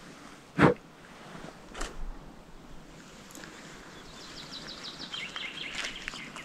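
A songbird sings a rapid run of high notes that falls in pitch, over quiet outdoor ambience. A sharp knock comes about half a second in, the loudest sound, and a softer one about a second later.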